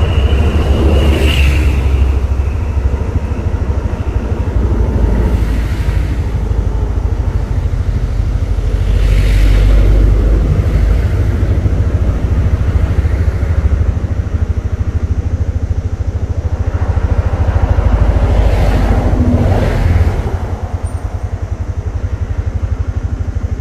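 Auto-rickshaw's small engine running steadily on the move, with a few brief whooshes of noise swelling over it. The engine sound drops lower about twenty seconds in.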